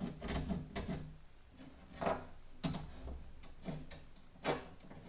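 Small mahogany spacer block being set and shifted against a plywood dinghy hull while positions are pencil-marked: a handful of light wooden knocks and scrapes, about six spread over a few seconds.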